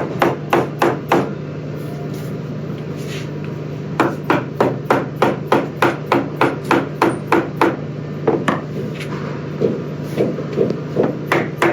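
Small mallet tapping a flat-pack cabinet gable forward onto its connectors, rapid sharp knocks about three a second, seating the panel until it locks. There is a pause of a few seconds after the first burst, and the knocks are softer near the end. A steady low hum runs underneath.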